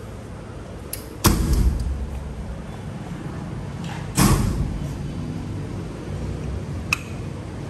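Sheet-metal access doors of a generator's soundproof canopy being shut: two loud bangs, about a second in and about three seconds later, each with a short low rumble, then a small metallic click near the end.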